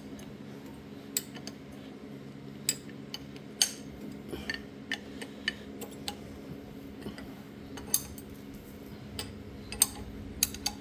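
Irregular metallic clinks and ticks of a wrench and small steel parts being handled on a tractor distributor's hold-down bolts and plate.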